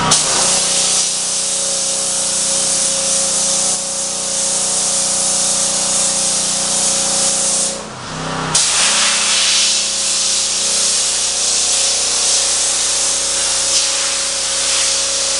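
Pressure washer blasting a metal frame: a loud, steady spray hiss with a steady whine from the machine underneath. The spray cuts off briefly about eight seconds in, then starts again.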